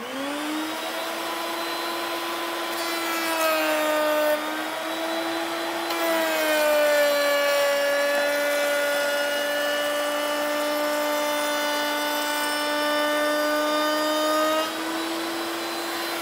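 Table-mounted router switching on and spinning up to a steady high whine. The pitch sags under load as the board's edge is fed past the bit: briefly about three seconds in, then for most of the time until about fifteen seconds in, when it climbs back as the cut ends. This edge-grain pass cleans up chip-out left by routing the end grain.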